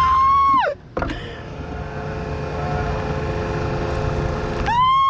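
A bumper boat's water blaster pump whining with a steady high tone, twice: once at the start and again near the end, each burst dropping in pitch as the pump stops, over the steady running noise of the boats.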